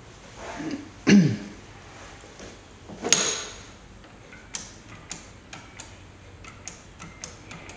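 Pay phone handset being lifted off its metal hook, with a knock about a second in and a louder ringing clang about three seconds in. Then a string of sharp clicks as fingers press the phone's metal keypad buttons, with no dial or touch tones.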